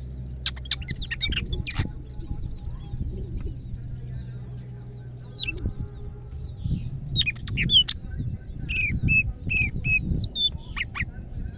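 Cucak ijo (leafbird) singing in loud bursts of sharp, quickly sweeping whistled notes, a flurry near the start and another from about the middle, including a run of four short repeated notes, with a low rumble underneath.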